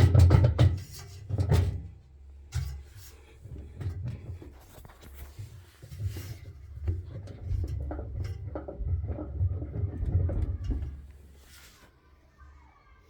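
Washing machine drum being handled for a bearing test: an uneven low rumble with scattered knocks and clunks, dying away near the end.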